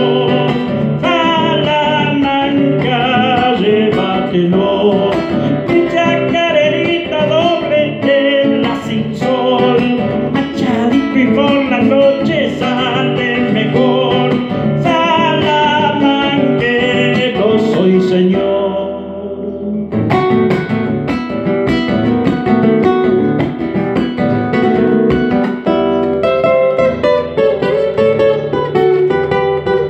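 A man singing in Spanish to his own acoustic guitar accompaniment. About two-thirds of the way through, the singing stops after a brief lull, and the guitar carries on alone.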